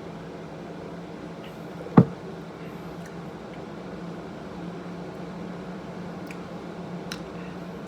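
Steady low hum of a fan running, with one sharp knock about two seconds in and a faint click near the end.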